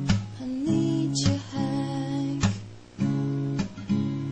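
Background music: a song with strummed guitar chords, a new strum about once or twice a second.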